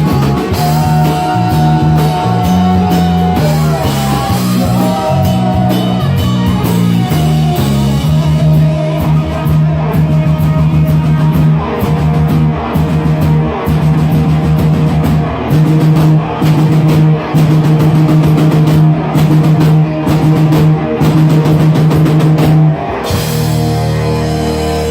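Rock band with electric guitar, bass and drum kit playing a driving hard-rock passage, with repeated chugging low notes under cymbals. About 23 seconds in the chugging stops and a held chord rings on.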